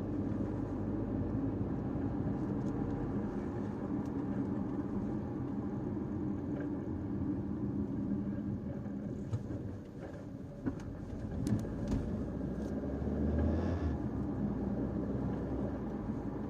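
Caoa Chery Tiggo 5x driving in town: steady engine and tyre noise. The noise dips briefly about ten seconds in, a few sharp clicks follow, and a deeper rumble swells near the end.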